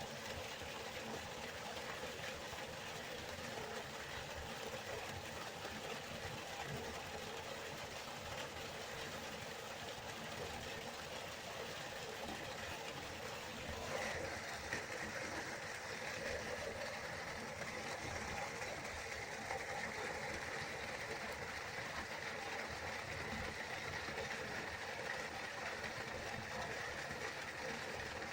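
River water flowing steadily, an even rushing with no pauses. About halfway through the sound turns a little brighter and hissier and stays that way.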